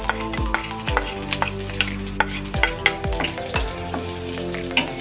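Chopped onion sizzling as it sautés in hot oil in a pan, stirred with a utensil that clicks against the pan again and again.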